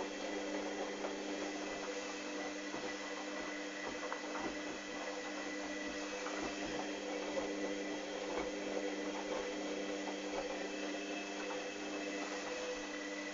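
Hoover Dynamic DYN 8144 D washing machine running mid-cycle: a steady mechanical hum made of several constant tones, with scattered light clicks throughout.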